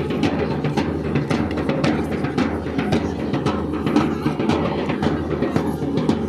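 Drums beaten in a fast, steady rhythm of repeated strikes.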